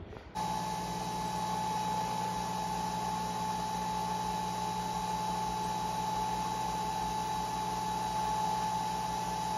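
Nespresso Vertuo capsule coffee machine brewing: a steady mechanical whir with a constant high-pitched tone as the machine spins the capsule and pumps the coffee out.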